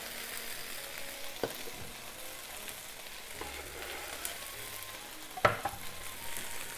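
Chicken sizzling in hot oil in a frying pan as bean sprouts and sliced green peppers are tipped in and stirred with a wooden spatula. There is a light knock about a second and a half in and a sharp, louder knock about five and a half seconds in.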